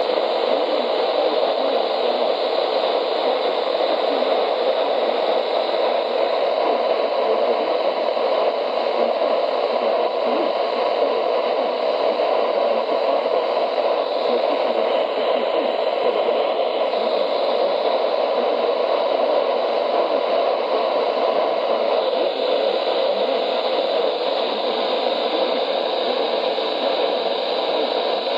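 Steady hiss of static from a weather radio receiver with no voice coming through, as when the signal is weak or lost.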